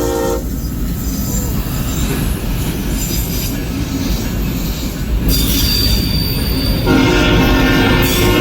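A fouled Nathan K5HL five-chime horn on a GE locomotive sounds a chord that cuts off about half a second in. The autorack freight then rolls past with a steady rail rumble and high-pitched wheel squeal. The horn sounds again about seven seconds in.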